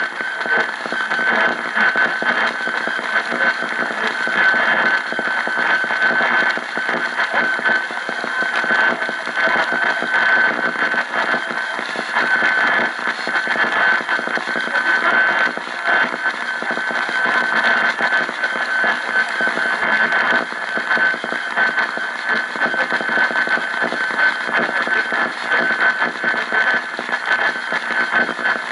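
AM radio receiver putting out loud, continuous static and interference, with a steady whistle tone running through the hiss.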